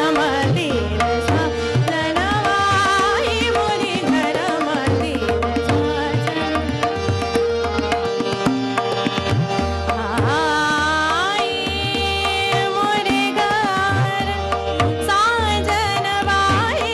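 A female vocalist sings a Hindustani classical khayal in Raga Rageshree, with gliding, ornamented phrases. She is accompanied by tabla, whose deep bass strokes recur throughout, and by harmonium and tanpura under a steady drone.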